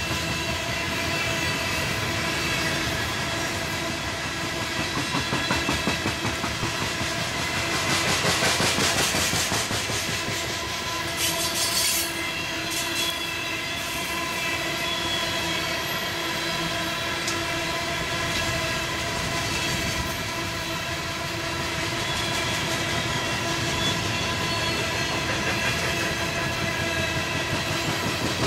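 Freight train of coal cars rolling past close by: steel wheels clattering over the rail joints in a rapid clickety-clack, with a steady ringing squeal from the wheels on the rail. A short, sharper hiss-like screech rises about eleven seconds in.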